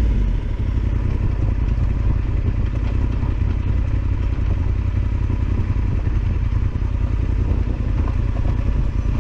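Yamaha Super Ténéré XT1200Z's parallel-twin engine running steadily as the motorcycle rides on.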